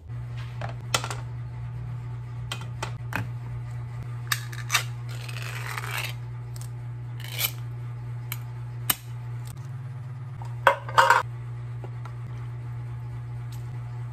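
Kitchen handling sounds as a metal can of Spam is handled and its pull-tab lid peeled open: a series of sharp clicks and clinks, a short scraping rasp about five seconds in, and a louder cluster of metallic clanks about eleven seconds in. A steady low hum runs underneath.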